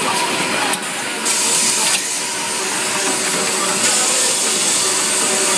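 Automated vinyl record press and its pneumatic handling arm running: a steady mechanical hum under hissing compressed air. The hiss drops briefly about a second in and swells again from about four seconds in as the arm moves the pressed record.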